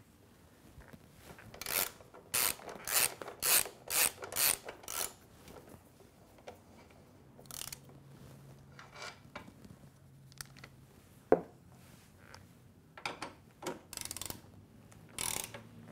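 Ratchet wrench clicking in short strokes, about two a second, as the rear shock bolts on a motorcycle are spun loose for removal; it pauses midway and starts again near the end, with one sharp click in between.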